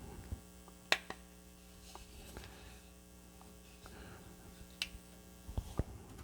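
Steady low electrical mains hum with a few sharp clicks, one about a second in and one near five seconds, and a couple of dull knocks near the end, typical of handling a chip and chip tester on a bench.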